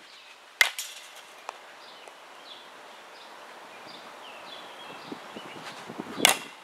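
Two sharp cracks of a softball bat hitting tossed balls in batting practice, about half a second in and again near the end, the second louder and ringing briefly. Faint high chirps are heard between the hits.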